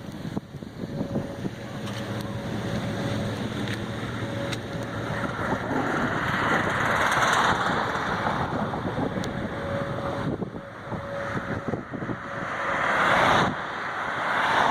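Strong wind buffeting the microphone in storm gusts near a tornado, a steady rushing that swells louder twice, in the middle and near the end.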